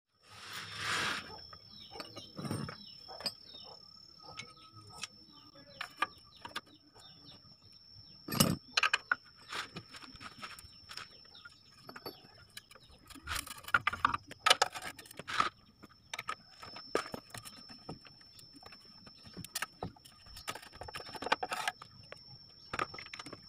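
Hand ratchet and socket working the bolts around a car's steel oil pan: scattered metallic clicks, ratcheting and clinks of tool on metal, irregular and on and off, over a faint steady high-pitched tone.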